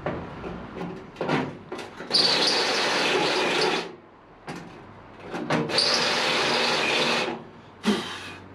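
A grinding stone spun by a power tool deburring freshly drilled cable holes, run in two bursts of about a second and a half each to smooth off the rough edges. Short knocks come between the bursts.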